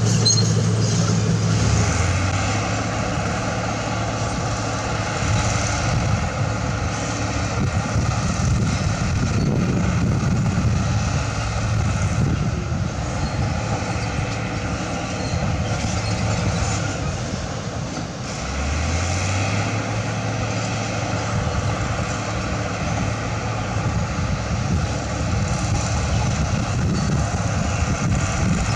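Diesel engines of heavy road-construction machinery running. The low engine note drops about two seconds in and revs back up a little past halfway.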